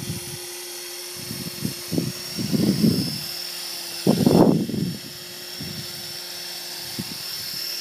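Electric Blade 450 RC helicopter flying low: a steady rotor hum with a high, drill-like motor whine. Two louder spells of rushing noise come through, the loudest about four seconds in.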